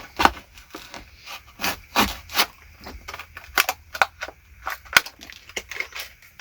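Irregular small clicks, taps and rustles of plastic parts being handled: a new fuel pump wiring connector being looked over against the old one.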